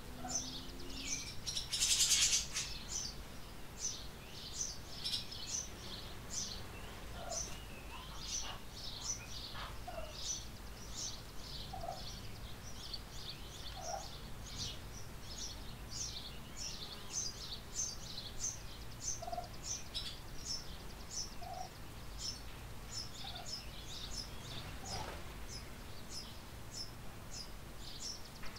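Small birds chirping rapidly and without a break, about three high chirps a second, mixed with short lower calls from domestic fowl every couple of seconds. A brief loud, noisy burst comes about two seconds in.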